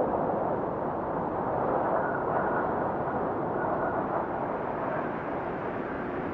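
Blizzard wind blowing, a steady rushing noise that swells and eases slightly.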